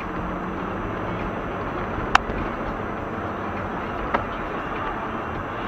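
Car driving on a winter road, heard from inside the cabin through a dashcam: steady engine and road noise, with a sharp click about two seconds in and a fainter one about two seconds later.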